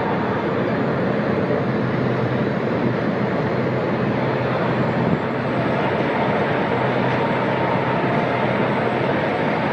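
Heavy mining machinery running steadily as a mining shovel loads a haul truck: a steady low hum under a wide, even rushing noise.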